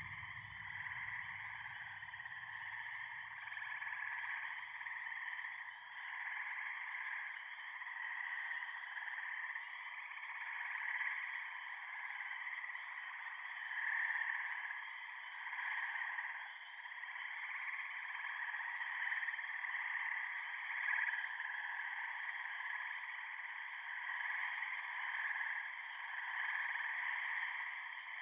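Electronically processed chorus of toad mating calls: a dense, continuous wash of trilling calls with no bass, gently swelling and fading. A low rumble underneath dies away over the first several seconds.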